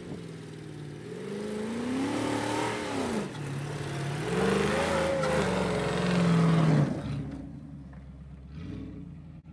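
Two-door Range Rover Classic's engine revving up and down as it drives up a sandy track. It grows louder as it nears, then drops away sharply about seven seconds in as it moves off up the slope.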